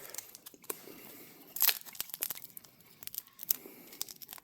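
A foil Pokémon booster pack wrapper being crinkled and torn open, in a string of short, quiet rustles and tears, the loudest about a second and a half in.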